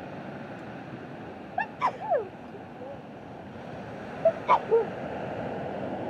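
Sea surf washing steadily on the shore. Two sets of three short, sharp cries rise above it, the first about two seconds in and the second a little after four seconds.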